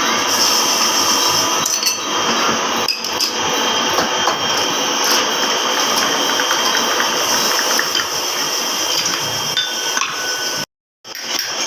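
Workshop noise during motorcycle front-fork work: a machine with a steady high whine runs throughout, with metal tools clinking and knocking over it. The sound cuts out briefly near the end.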